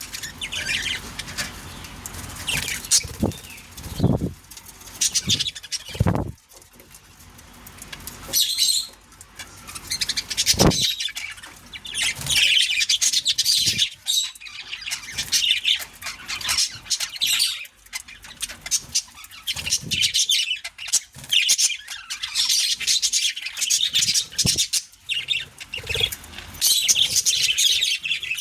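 Pet budgerigars chirping and chattering continuously in fast, high-pitched bursts, with wing flaps and a few soft thumps.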